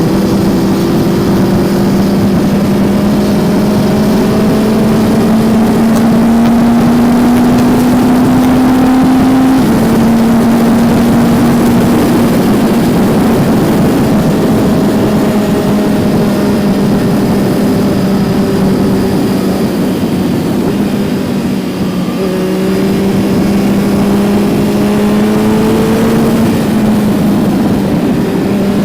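2019 Kawasaki Z900's inline-four engine running under way, its pitch climbing slowly under throttle and then dropping sharply about ten seconds in and again near the end, as on upshifts. Around two-thirds of the way through it eases off briefly before pulling again.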